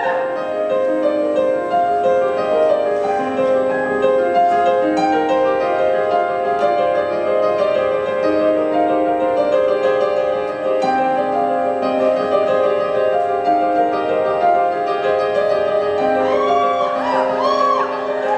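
Live piano playing sustained chords that change in steps, in an unaccompanied improvised passage. A woman's singing voice comes back in near the end.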